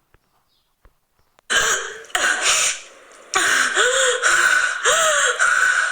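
Silence for about a second and a half, then a person gasping and breathing hard: several sharp, loud gasps in a row, some with a short voiced catch.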